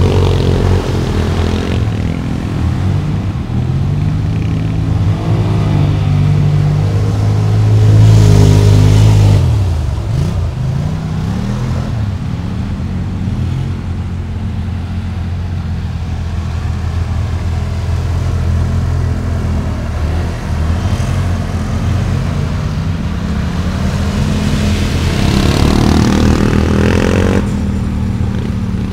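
Quad bike engine revving up and down as it drives through shallow water, with splashing spray. The revs climb highest about eight seconds in and rise again near the end.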